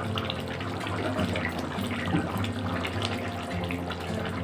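Thick curry gravy bubbling as it simmers in an aluminium kadai, a steady run of small pops and gurgles.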